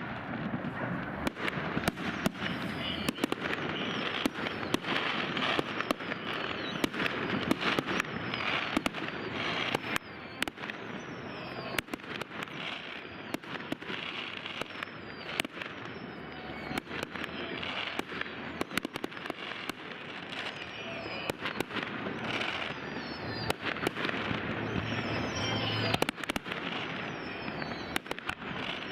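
Fireworks display: rapid, irregular bangs of bursting shells, several a second, over a constant crackle and hiss, with high falling whistles now and then.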